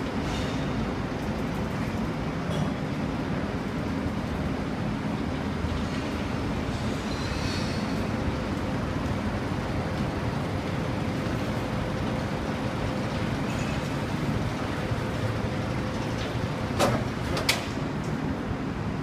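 Steady low rumble of background noise with a faint hum, broken by two sharp clicks or knocks close together near the end.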